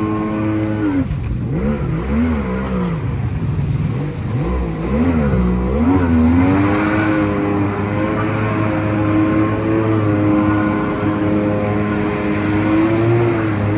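Jet ski engine running hard over the hiss of rushing water and spray. Its pitch dips and climbs several times in the first few seconds as the throttle is eased and opened again, then holds steady at high revs.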